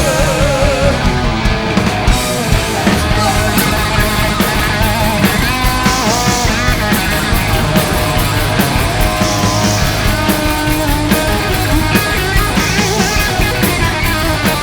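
Hard rock band playing loud and live: distorted electric guitars, bass and drums in an instrumental passage, with a lead guitar line that bends and wavers in pitch.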